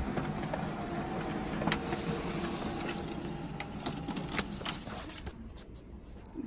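Office printer running as it prints a page: a steady mechanical whir with a few held tones. About four seconds in it stops, and the printed sheet is pulled from the output tray with paper rustling and a few clicks.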